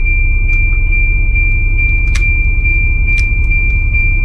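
The Volvo B10 bus's diesel engine idling as a steady low rumble, with a constant high-pitched electronic tone over it and two sharp clicks about halfway through.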